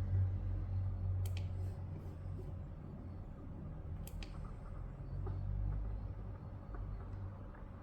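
A few sharp clicks over a low, wavering hum. The clicks come about a second in and again about four seconds in, from the buttons of an ultrasound scanner's control panel being pressed.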